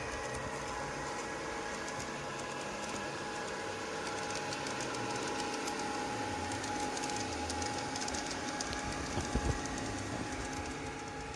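Sound module in an Aristocraft G-scale Class 66 model locomotive playing a steady diesel engine running sound through the model's small loudspeaker. A few sharp clicks come about nine seconds in.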